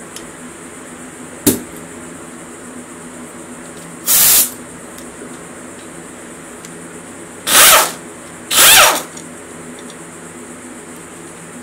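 Pneumatic wrench on an air hose loosening the water pump bolts of a classic Mini engine, in three short bursts about four, seven and a half and eight and a half seconds in. A sharp click comes about a second and a half in.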